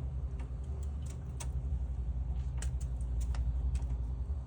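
Steady low hum of running refrigeration equipment, with a handful of scattered light ticks and clicks over it.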